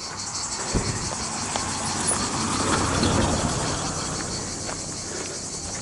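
Insects chirping in a fast, even, steady rhythm, with a broad rush of noise that swells to a peak about three seconds in and then fades.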